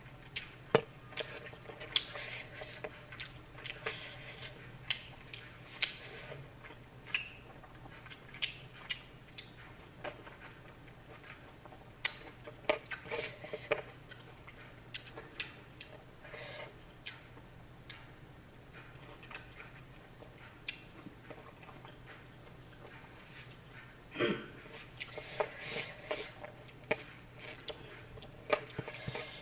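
Irregular light clicks and clinks of utensils against dishes, scattered throughout, over a steady low hum.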